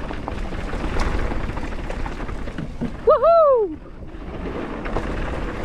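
Mountain bike descending a rough dirt trail: a steady rush of tyre and rolling noise with scattered small knocks and rattles from the bike going over stones. About three seconds in, the rider gives a short exclamation that rises and falls in pitch.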